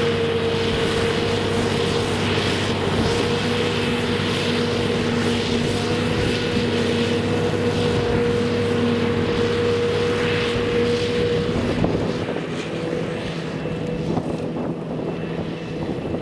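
Claas Jaguar 850 forage harvester chopping silage maize, with the truck that takes the chop running alongside: a steady heavy engine sound with a high steady whine over it. The whine drops away a little under twelve seconds in, and the sound grows quieter as the machines move off.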